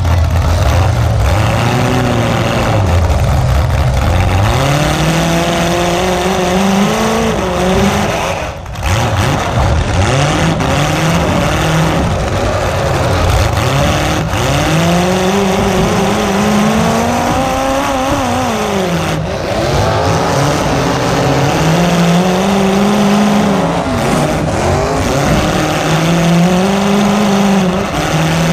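Demolition derby car's engine, heard close up through its open exhaust stacks poking up through the hood, revving hard and falling back again and again in long rising and falling sweeps as the car accelerates and reverses. The revving drops briefly about a third of the way in.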